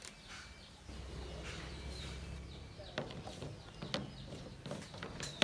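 Tamarind pods and mangoes being set down and handled on a woven bamboo tray, with a few sharp clicks and light rustling, while birds chirp in the background. A low steady rumble comes in about a second in.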